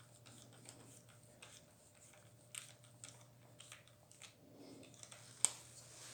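Faint small clicks and light scrapes of metal parts and hand tools being handled while an air rifle is taken apart, with one sharper click about five and a half seconds in.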